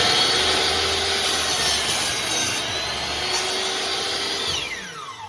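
Metabo HPT 10-inch compound miter saw with a 15-amp motor running and cutting through a 4x4 timber, its whine dipping a little in pitch under load. About four and a half seconds in the motor is switched off and the blade winds down with a falling whine.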